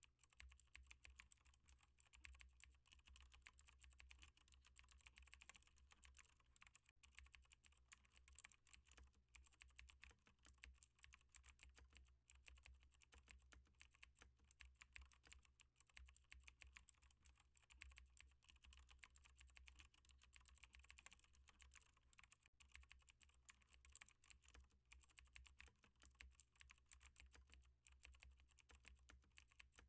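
Faint, continuous typing on a computer keyboard: a rapid, uneven stream of key clicks while code is written.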